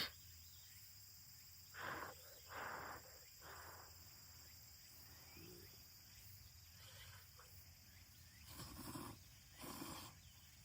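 A person slurping cup ramen noodles in several short, breathy slurps with long quiet gaps between them, after a click at the start.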